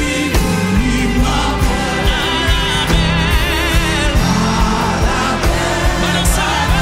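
Live gospel worship song: a woman sings a Haitian Creole praise song into a microphone, holding notes with vibrato, over electric keyboard and band accompaniment.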